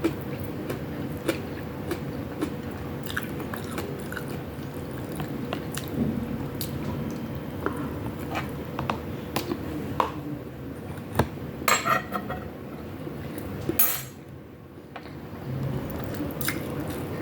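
Close-up eating sounds: a person chewing and biting into chicken wings, ground pork and rice, with sharp clicks of cutlery against a plate. The clicks come thickest a little past the middle. A faint steady hum runs underneath.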